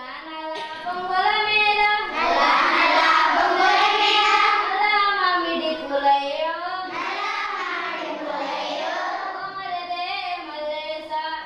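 A group of schoolchildren singing together in unison, a sustained classroom song.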